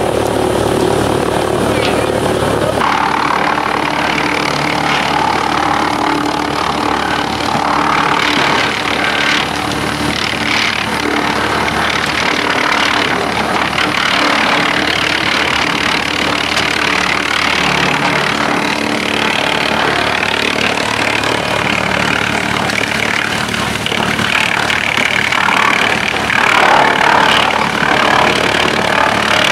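Teknamotor Skorpion 500EB stationary drum wood chipper running, a loud, continuous mechanical noise from its drum and drive; the sound changes abruptly about three seconds in.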